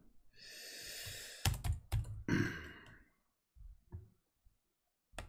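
A long breathy exhale, then a quick run of computer keyboard keystrokes, a second shorter breath, and a few more scattered keystrokes.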